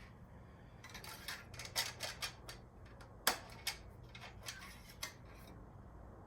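Oil dipstick on a new Briggs & Stratton mower engine being pulled out and pushed back into its tube during an oil-level check: a quick run of light clicks and clinks, the sharpest about three seconds in.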